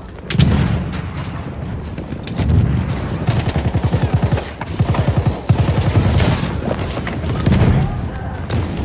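Battlefield sound effect of war gunfire: deep explosion booms, scattered rifle shots and, around the middle, a fast rattling burst of machine-gun fire.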